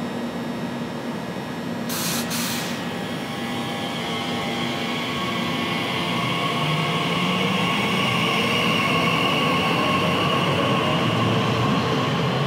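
Class 345 electric multiple unit pulling away from the platform. A brief hiss comes about two seconds in, then its electric traction whine builds and grows louder as the train gathers speed.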